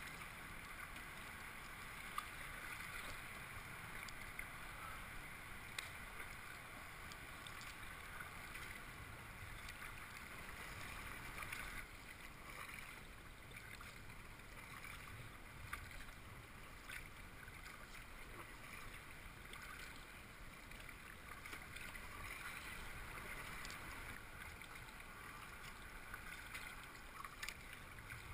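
Kayak paddle strokes: water splashing and dripping off the paddle blades, faint and steady, with a few light clicks here and there.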